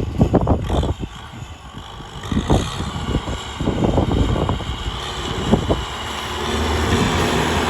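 Kubota tractor's diesel engine running under work, with a run of irregular knocks and clanks from the machine and its implement. Near the end the engine settles into a steadier, louder drone.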